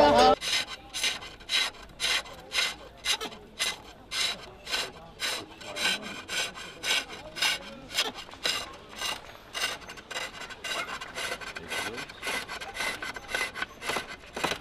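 Gouge cutting a spinning wooden blank on a wooden lathe, a rhythmic series of rasping cuts about two a second.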